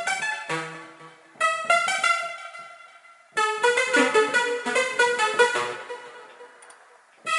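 Synthesizer preset from the Steinberg HALion 3 Hypnotic Dance sound set, played on a keyboard: three short phrases of bright pitched notes and chords, each fading away, the last dying out near the end.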